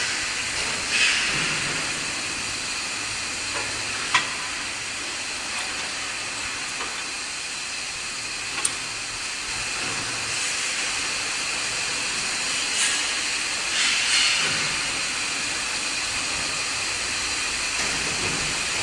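Steady hissing factory noise in an autoclaved aerated concrete block plant, with a few short sharp metallic clicks and a couple of brief louder squeals.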